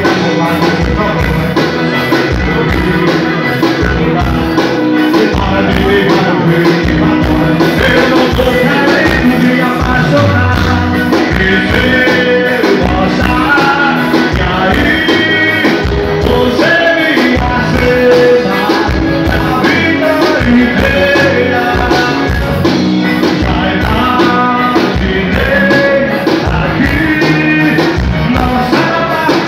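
A live band playing loud amplified music, with a steady drum beat under electric guitar and a melody line.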